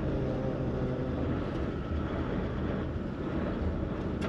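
Car driving along a gravel lane, heard from inside the cabin: a steady rumble of engine and tyres, with faint engine tones.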